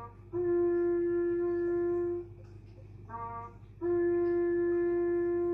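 A wind instrument blowing two long, steady held notes of the same pitch, each lasting about two seconds and each preceded by a short blip.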